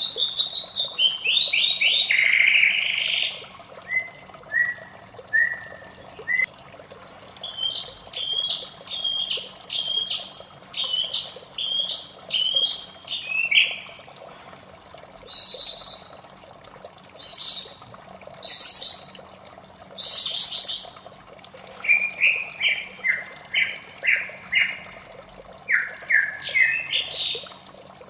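White-rumped shama singing: a string of varied phrases of rapid whistled and chattering notes, each a second or so long, separated by short pauses. Running water makes a steady background.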